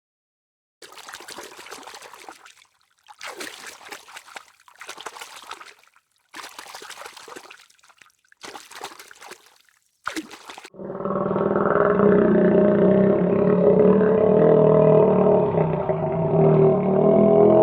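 A farm animal's sounds: a run of short breathy, noisy bursts with silent gaps, then, about two-thirds of the way in, a loud, long, steady low call.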